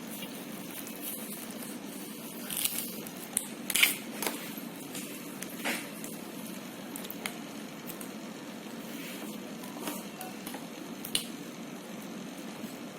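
Old polarizer film being scraped and peeled off an LCD TV panel: scattered short scraping and crackling sounds, loudest about four seconds in, over a steady low hum.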